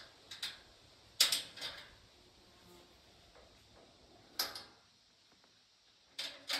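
Sharp knocks in four short groups of one to four strikes each, spread a second or more apart.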